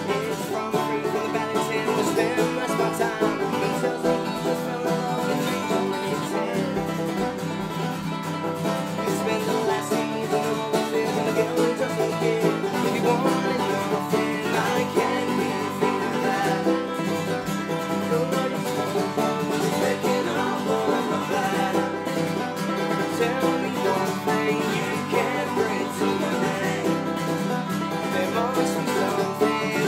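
An acoustic string band playing a fast, driving roots tune together: picked banjo, strummed acoustic guitar and resonator guitar.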